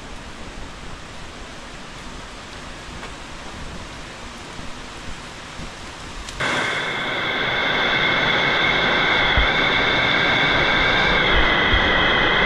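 Heavy tropical rain pouring down in a steady hiss. About six seconds in it becomes suddenly louder, with a steady high-pitched layer on top.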